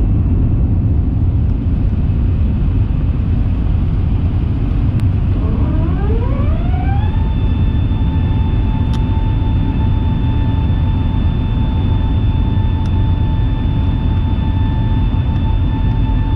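Jet airliner engines: a heavy low rumble throughout. About five seconds in, a whine rises in pitch for a second or two and then holds steady, as the engines spool up to takeoff thrust.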